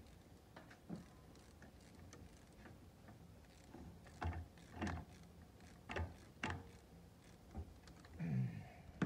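Clicks and knocks of hands and tools fitting a heater hose onto a plastic coolant hose tee in an engine bay: several sharp clicks in the middle, and a brief, louder, lower sound near the end.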